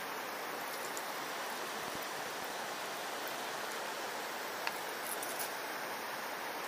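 Steady rushing hiss of river water running over rocky shallows, with a couple of faint ticks a little past halfway.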